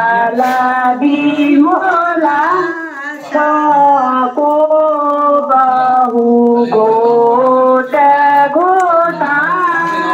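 A woman singing a Kumaoni shakunakhar, the auspicious ritual song, in long held, gliding notes, relayed from a phone over a small portable speaker.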